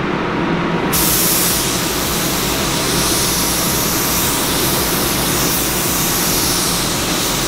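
Paint spray gun hissing as it lays down clear coat, switching on suddenly about a second in and then holding steady, over a steady rush of air.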